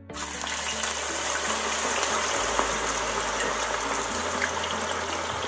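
Raw Nendran banana slices frying in hot oil: a loud, steady sizzle and bubble that starts suddenly as the slices go into the oil.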